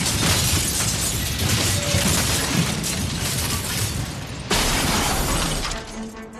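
Glass window shattering as a sound effect: a long crash of breaking glass. A second burst of crashing starts about four and a half seconds in, then gives way to quiet background music near the end.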